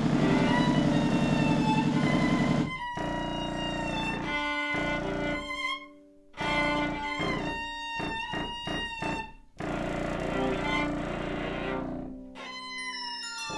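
Contemporary chamber music for viola, contrabassoon and Korg Kaossilator. A dense, low buzzing texture cuts off abruptly about three seconds in. It gives way to held, high viola-like tones over sustained low notes, and the sound drops out suddenly a couple of times.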